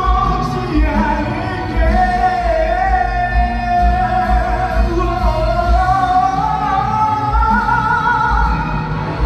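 A song: a singer holding long notes with vibrato over an accompaniment with a steady bass beat.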